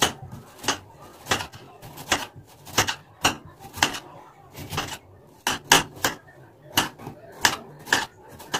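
Kitchen knife slicing a raw potato straight on a stone countertop, each cut ending in a sharp click of the blade on the stone. The cuts come unevenly, about two a second.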